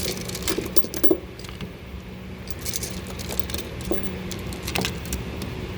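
Metal sockets and hand tools clicking and clinking as they are handled in a toolbox, with several sharper knocks about a second in and again near five seconds, over a steady low hum.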